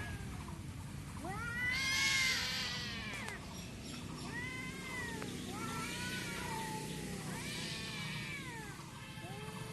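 Cats yowling and caterwauling at each other in a fight: a string of drawn-out calls that rise and fall in pitch, the loudest about two seconds in, more following every second or so. A steady low hum runs underneath.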